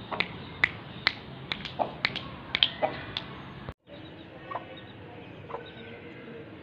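About a dozen sharp, irregular clicks over three and a half seconds, with a couple of short low clucks from an Aseel rooster among them. The sound cuts off abruptly, and a few faint short chicken calls follow.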